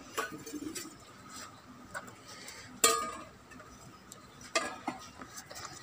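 China plates and a steel container clinking as they are handled and set down: a few light knocks, with one sharper clink about three seconds in that rings briefly, and two more knocks near the end.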